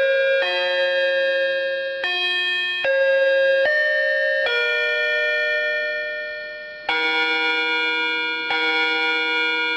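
Built-in Android phone tones from a Xiaomi Redmi Go 2: a melody of bell-like chime notes that fades out, then, about seven seconds in, a different chime pattern that starts and repeats about every second and a half.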